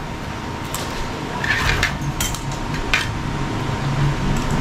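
Metal forks clinking against ceramic plates as they are set down on a table, a few light clinks spread out over a steady low hum.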